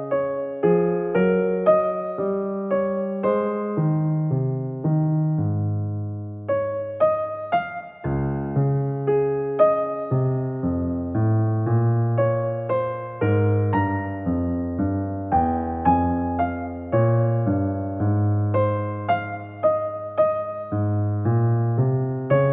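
Soft background music played on a keyboard, a slow melody of struck notes that fade, over low bass notes, with a brief lull about eight seconds in.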